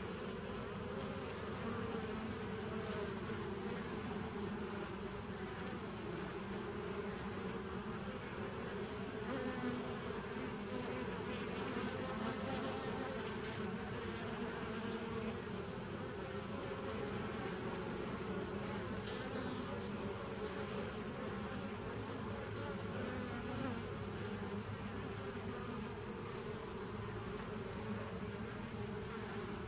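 Honeybees buzzing at a hive entrance as they fly in and out: a steady, continuous hum of many bees.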